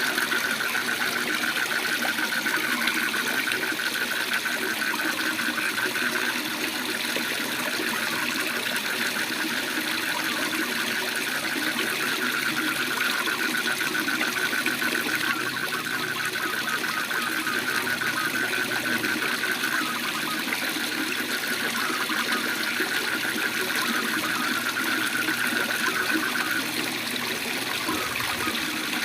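Waterfall rushing steadily, with frogs trilling in a continuous high, rapidly pulsed chorus that eases off near the end.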